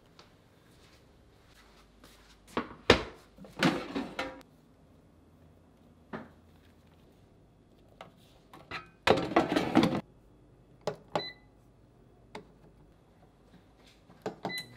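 Kitchen handling sounds: a few sharp knocks and clatters of dishes and utensils, with a longer clatter midway. Near the end come two short electronic beeps from a kitchen appliance's control panel.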